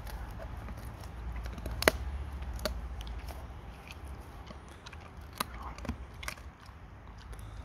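German Shepherd gnawing a lamb shank bone: scattered sharp cracks and crunches of teeth on bone, the loudest about two seconds in. They come over a steady low rumble.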